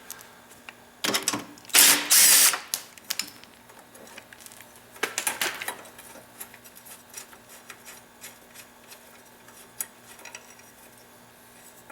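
Hand tools working on metal parts: two loud clattering rattles in the first few seconds and another about five seconds in, then a run of light irregular clicks as a wrench is worked on the 12 mm bolts.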